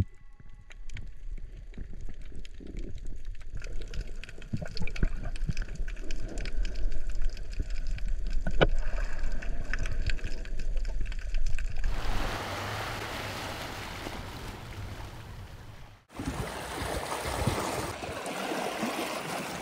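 Underwater ambience of scattered sharp clicks and crackles over a low rumble, giving way about twelve seconds in to a steady rushing hiss. After a break at about sixteen seconds, seawater sloshing and lapping against a shoreline rock.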